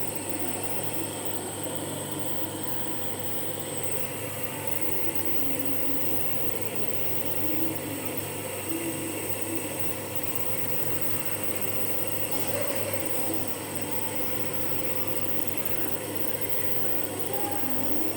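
Compressor nebulizer running with a steady hum and hiss while giving a child a mist treatment for a cough and cold.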